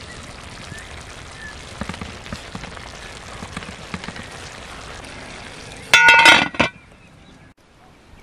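Wooden spatula stirring green beans in a large metal pan simmering over a fire, with a steady simmer and soft scattered clicks. About six seconds in, a brief loud burst of metal clinking that rings for a moment.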